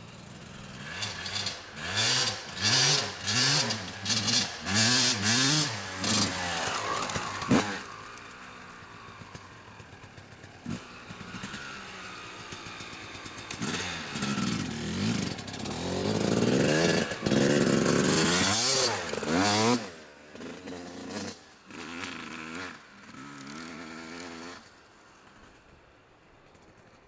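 1998 Yamaha YZ250's two-stroke single-cylinder engine revving in a string of short bursts, pitch rising and falling with the throttle, then easing off for a few seconds. It comes back with a long climbing rev before fading away near the end.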